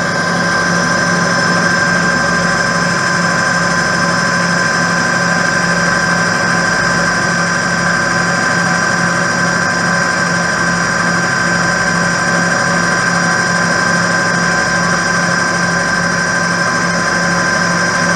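Cue lathe motor running steadily, a constant hum with high whining tones, as a wooden block wrapped in 400-grit sandpaper is held against the spinning ferrule and tip to sand them level with the shaft.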